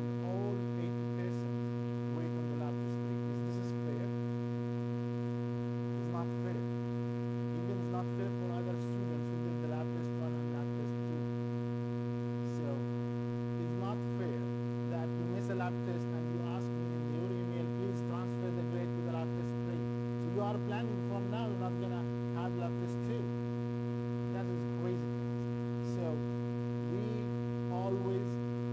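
Steady electrical mains hum with a stack of overtones, unchanging throughout, with faint scattered voices underneath.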